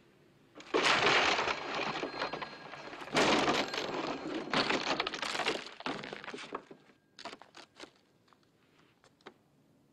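Fight sound effects from a film: a run of loud crashes, thuds and things breaking for several seconds, then a few sharp knocks near the end.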